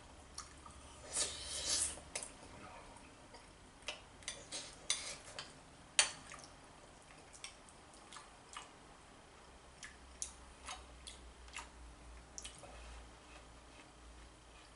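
A metal spoon clicking and scraping against a plate of curry at irregular intervals, with soft eating sounds; the sharpest click comes about six seconds in.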